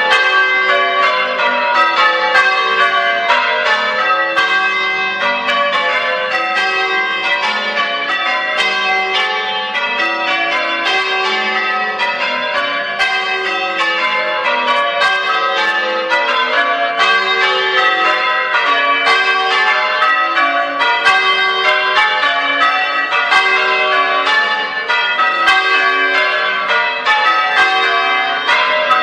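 Church tower bells rung full-circle in changes (English change ringing): a steady, unbroken stream of bell strokes, each ringing on into the next.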